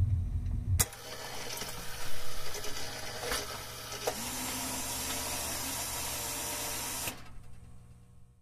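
The music's bass ends with a sharp click about a second in. Then a jukebox record-changer mechanism runs: scattered mechanical clicks over a steady hiss. The hiss cuts off about seven seconds in and dies away.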